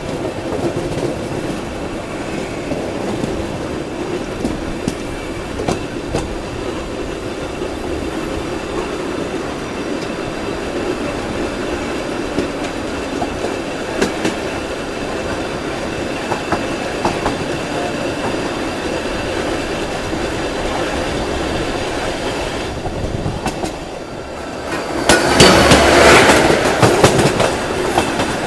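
Express train running at speed, its wheels clattering over rail joints, while a second express train passes close alongside on the next track. About 25 seconds in, a much louder rush of noise lasts a couple of seconds.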